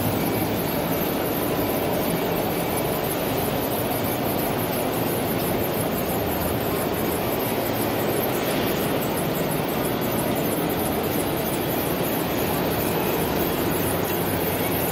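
Steady, unbroken background din of a busy exhibition hall, with a faint low hum.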